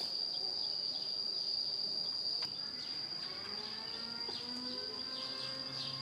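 Insects, cricket-like, giving one steady high-pitched drone without a break. From about halfway through, short falling bird chirps come in several times.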